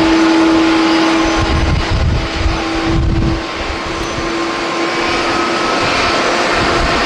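Business jet's engines running at takeoff power as it climbs out, a steady jet roar with one sustained tone through it. Strong wind buffets the microphone with low rumbles about two and three seconds in.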